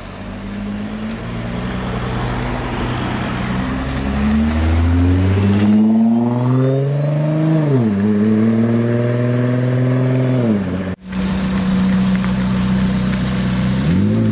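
Nissan GT-R's twin-turbo V6 accelerating hard away, its engine note climbing and dropping sharply about eight seconds in as it shifts up. After a sudden break, a McLaren's twin-turbo V8 runs at a steady low note and begins to rev up near the end.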